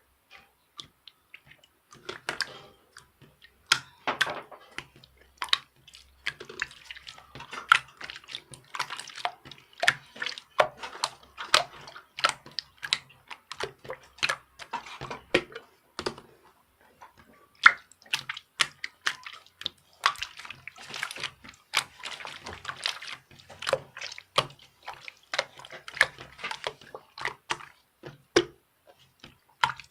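Irregular wet splashing and dripping, a few sharp clicks a second, over a faint low hum.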